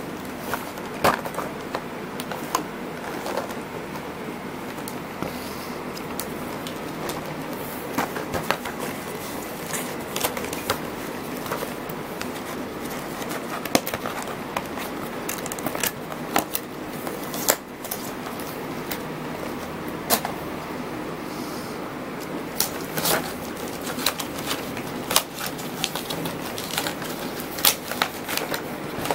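Cardboard retail box and its plastic inner tray handled by hand: scattered clicks, taps and scrapes as the box is turned, its flap opened and the tray slid out, more frequent near the end, over a steady hiss.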